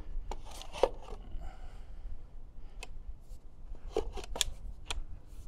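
E-bike downtube battery pack being slid into its frame cradle and pressed home by hand: scraping with a series of clicks and knocks, a sharp one about a second in and several more around four to five seconds in as it seats.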